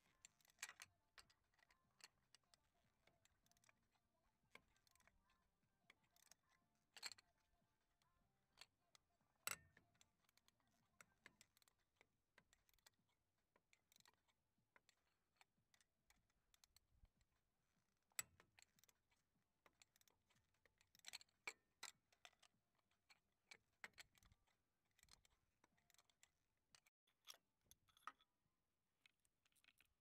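Near silence broken by faint, irregular small clicks and taps, with a couple of sharper ones about nine and eighteen seconds in.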